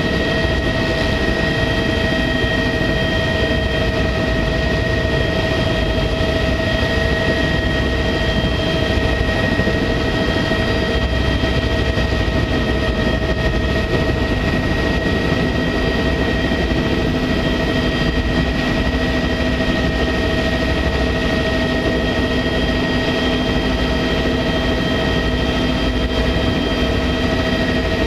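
Sightseeing helicopter in steady cruise heard from inside the cabin: a constant turbine whine over an even rushing drone of rotor and airflow.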